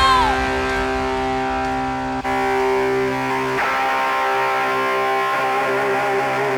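Distorted electric guitar holding sustained chords through effects, changing chord about two seconds in and again past three and a half seconds, as the last sung note glides down and ends at the start.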